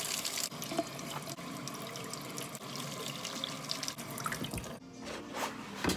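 Kitchen tap running into a stainless steel sink, with hands being washed under the stream, splashing.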